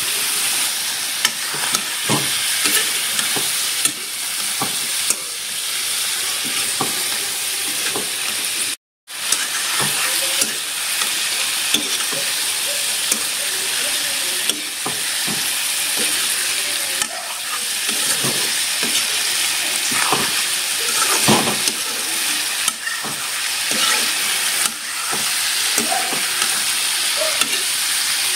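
Broiler chicken pieces sizzling in hot oil in a wok while a metal spatula stirs and tosses them, scraping and knocking against the pan with a steady hiss underneath. The sound drops out for an instant about nine seconds in, then carries on.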